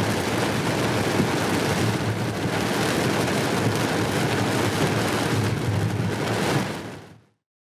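Steady rain and road noise heard inside a moving car's cabin in a heavy rainstorm, fading out about seven seconds in.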